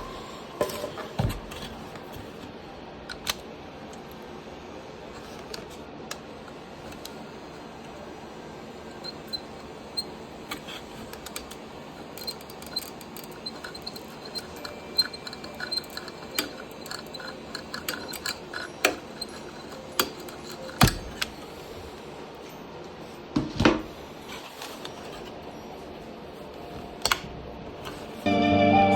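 Scattered light clicks and taps of tools working on a golf cart controller's circuit board while its pins are being desoldered, over a steady low hiss. A few sharper knocks stand out in the later part, and music comes in at the very end.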